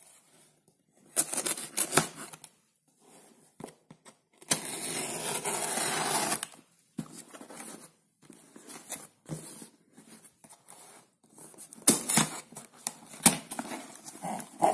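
Cardboard shipping box being opened: packing tape slit with a folding pocket knife and pulled away, with one long loud tearing scrape a few seconds in. Near the end the cardboard flaps rustle and scrape as they are folded open.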